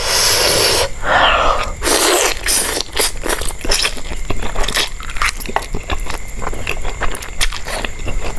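Eating sounds: biting and crunching into food. A few longer scraping noises come in the first two seconds, then a quick run of many short, sharp crunches and clicks.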